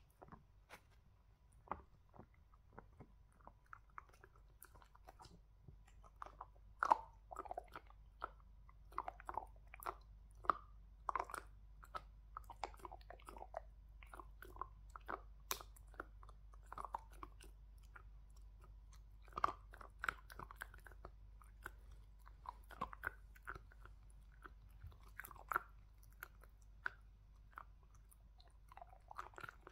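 A dog chewing and crunching a hard treat: irregular crunches and gnawing clicks come in bunches with short pauses between.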